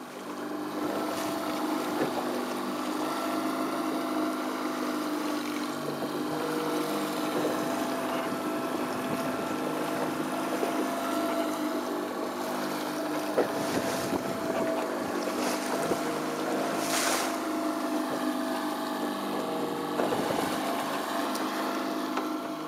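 Outboard motor running at a steady pace, pushing the boat through the water, with wind buffeting the microphone.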